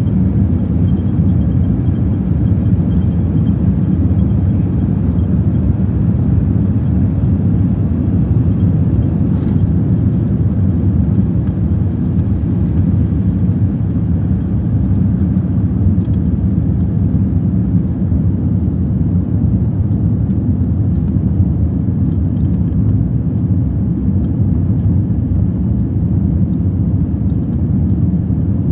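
Jet airliner cabin noise during takeoff: the engines at takeoff thrust give a loud, steady low rumble as the plane rolls down the runway, lifts off and climbs.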